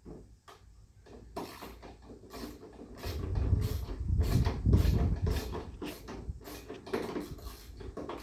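Irregular clicks, knocks and scraping of hand tools on metal as the old wagon's stubborn wheel-assembly bolts are worked loose, with a heavier low rumble of handling in the middle.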